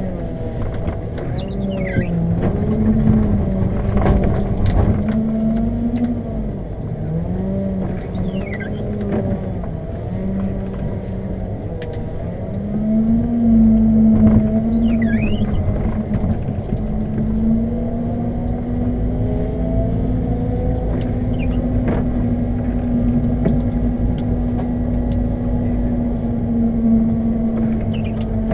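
Engine of a Lundberg compact articulated loader running under load while it plows snow. Its revs dip and rise repeatedly, then hold steadier in the second half, with occasional knocks and clatter from the machine.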